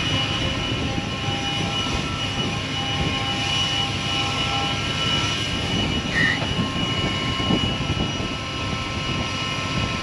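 Air blower running steadily with a high whine over a loud rush of air, blowing crop trash and chaff off a combine.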